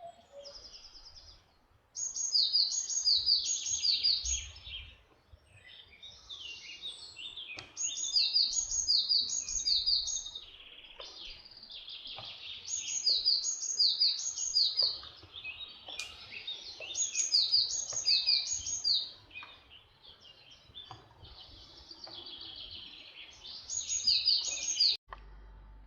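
Small songbirds singing: repeated phrases of short, high, down-slurred notes, several a second, coming in bursts every few seconds, over a faint low background rumble. The song cuts off abruptly near the end.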